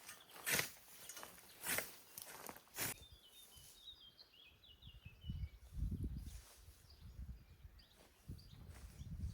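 Three swishes of a hand scythe cutting through grass, about a second apart, then the cutting stops. A small bird chirps in quick runs, and low thuds and rumbles follow.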